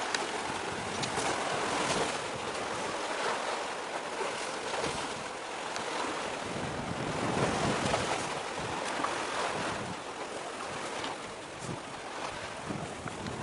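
Wind buffeting the microphone in uneven gusts over a steady rush of sea waves.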